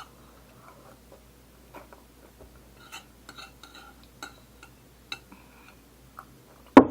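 Someone eating: faint scattered small clicks and chewing sounds, then a sharp clink of a spoon against a dish near the end.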